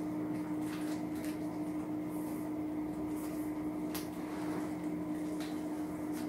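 Light handling noises from packaging and plastic pieces being pulled out of a wooden crate packed with battery cells: scattered soft rustles and clicks, the sharpest about four seconds in, over a steady low hum.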